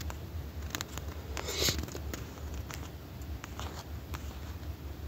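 Fingertip taps and clicks on a smartphone touchscreen while typing a search, mostly in the first two seconds with a few more later, over a low steady hum.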